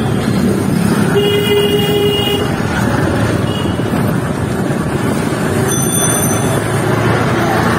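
Steady street and traffic noise heard from a moving cycle rickshaw. A vehicle horn sounds for about a second, starting about a second in, and a short high-pitched ring comes about six seconds in.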